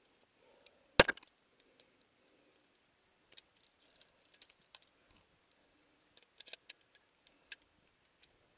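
Climbing hardware clinking as a climber moves up rock: carabiners and quickdraws knocking together and against the stone in scattered short clicks, with one sharp, loud knock about a second in.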